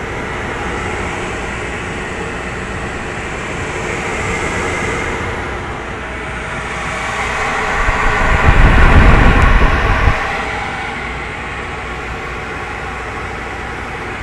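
Munters Cargocaire HC 600 desiccant dehumidifier running, giving a steady rush of air and fan noise. About eight seconds in it swells into a loud, low rumble that lasts roughly two seconds.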